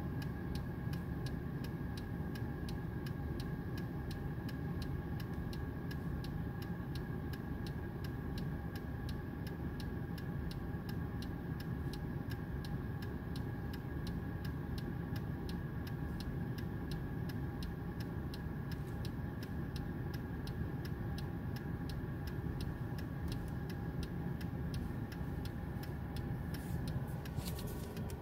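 Car engine idling, heard from inside the cabin, with a fast, even ticking all the way through. Near the end there is a short hiss.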